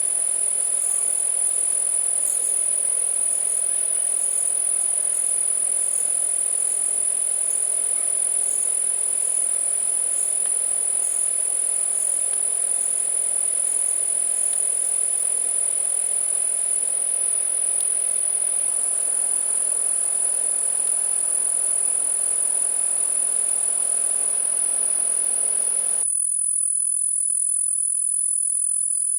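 Insect chorus, a steady high-pitched drone, with a low rushing noise under it that cuts off suddenly near the end.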